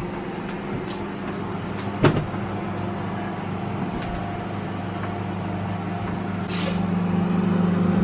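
Panasonic inverter microwave oven running while it heats a mug of water: a steady hum, growing louder near the end, with one sharp click about two seconds in.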